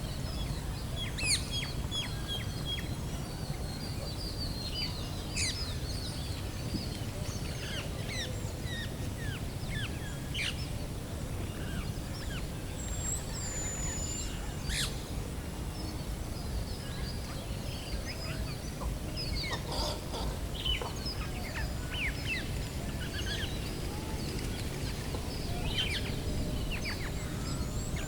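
Many small birds chirping, in short, quick notes scattered throughout, over a steady low outdoor rumble.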